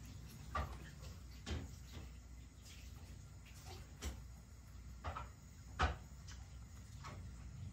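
Cat eating wet food from a ceramic bowl: irregular small wet clicks and knocks as it laps and chews, about six in all, the loudest about three-quarters of the way through.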